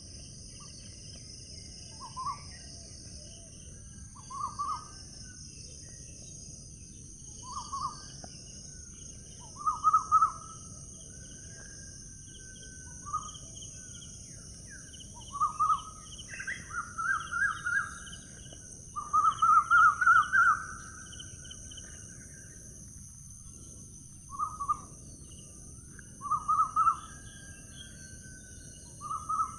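A bird giving short, stuttering calls every two or three seconds, with longer and louder runs of notes about two-thirds of the way in, over a steady high insect drone.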